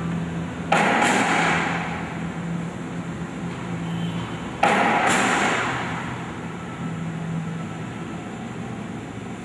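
Two loud thuds about four seconds apart, each a quick double strike that rings away over a second or so, over a steady low hum and background rumble.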